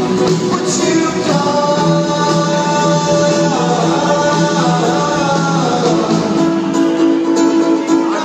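Live rock band playing a song: singing over guitars, heard from the audience seats.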